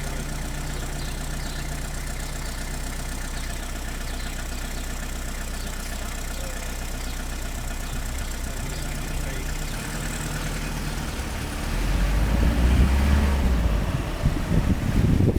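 Car engine running steadily, heard from inside the vehicle. About twelve seconds in, a louder, uneven low rumble of wind buffeting the microphone takes over.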